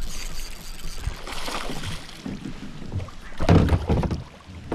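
Water splashing and knocking around a kayak as a hooked bass is fought beside the boat, with a louder rush about three and a half seconds in.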